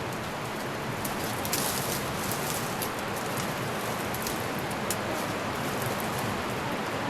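Steady rushing of a fast mountain river, an even, unbroken wash of water noise, with a few faint light clicks over it.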